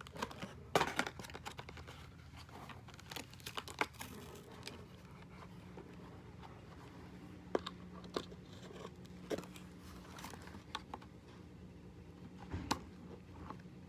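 Cardboard box and toy packaging being handled and rummaged through: scattered crinkles, scrapes and light clicks, busiest about a second in and again around four seconds, over a faint steady low hum.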